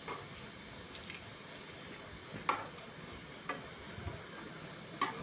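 A few light clicks, roughly one a second, of a spatula knocking against a kadai while chicken is stirred.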